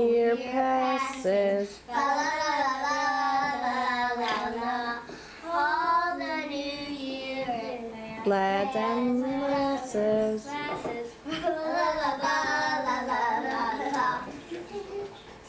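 Young children singing a Christmas carol together, unaccompanied, in sung phrases with short breaks between them.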